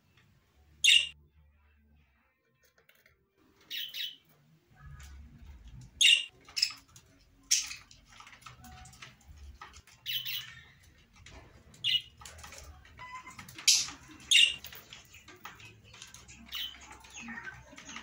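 Caged budgerigars and lovebirds giving short, shrill chirps and squawks, about a dozen in all, with quieter chattering between them.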